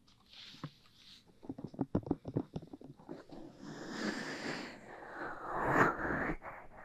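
Close-miked ASMR trigger sounds: a quick run of taps or clicks about two seconds in, then a rustling, scratching noise that builds to a peak near the end.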